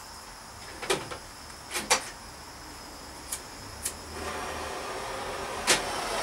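Several sharp clicks and knocks of handled metal parts, then a steady rushing noise that starts about four seconds in, with one more knock near the end.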